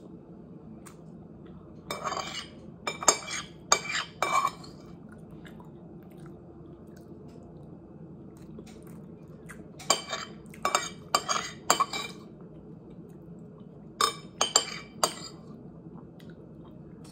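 Metal spoon scraping and clinking on a ceramic plate in three short runs of quick strokes, over a steady low hum.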